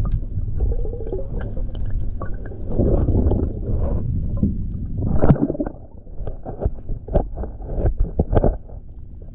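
Muffled underwater sound from a diver's camera: a steady low rumble with many small clicks and knocks, and two louder bubbling swells a few seconds in, typical of a diver's exhaust bubbles.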